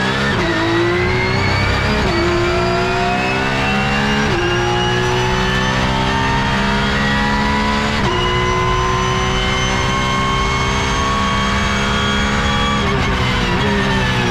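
Porsche 911 GT3 Cup (992) racing flat-six heard from inside the cockpit at full throttle, rising in pitch through the gears with sharp drops at quick upshifts about two, four and eight seconds in. Near the end the pitch falls as the car brakes and downshifts.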